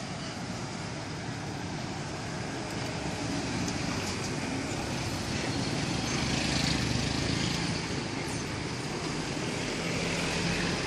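Road traffic passing. A vehicle engine swells louder about six seconds in and then fades.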